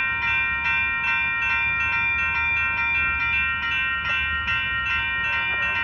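Railroad crossing signal's electronic bells, a WCH Gen 2 Type 3 and a General Signals Type 2, ringing steadily at about two to three strikes a second. They sound while the gates are down and the lights flash, warning of a train.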